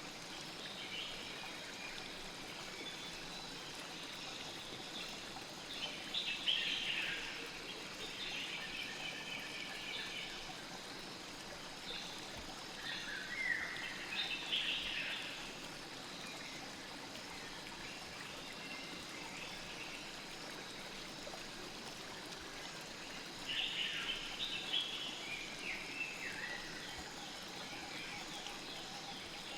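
A river running steadily with an even rushing and trickling, with three spells of bird chirps over it, spread through the stretch.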